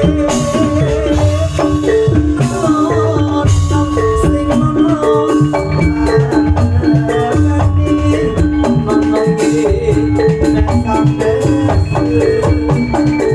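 Javanese gamelan-style music: mallet-struck metallophones play quick runs of notes over a drum keeping a steady beat.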